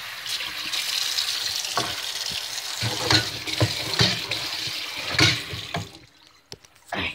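Kitchen tap running water into the sink as a steady rush, turned off abruptly about six seconds in, with a few knocks over it.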